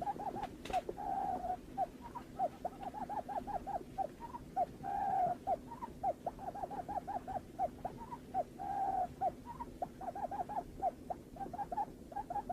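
Barred buttonquail calls: a fast series of short hooting notes, several a second, broken by longer drawn-out hoots about a second in, around five seconds in and near nine seconds.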